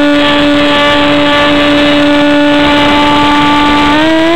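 Onboard sound of an RC plane's motor and spinning pusher propeller: a steady high hum over rushing airflow noise, its pitch stepping up slightly near the end.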